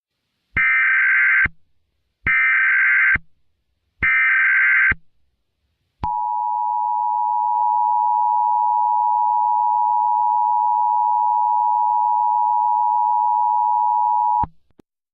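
Emergency Alert System warning tones. First come three short bursts of warbling digital SAME header code, then the two-tone attention signal held steady for about eight seconds, ending abruptly.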